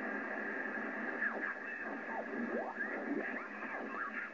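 Trio JR-599 communications receiver's audio hissing with band noise as its tuning knob is turned, with a steady whistle and several short falling and rising whistles as the dial sweeps across signals.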